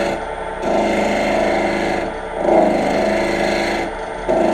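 Dull woodturning gouge chattering against the spinning corners of a square pine spindle on a lathe, giving a steady buzzing clatter. It comes in three stretches with brief breaks as the tool is pressed in and eased off. The dull edge is scraping and knocking at the wood rather than cutting, and raises no shavings.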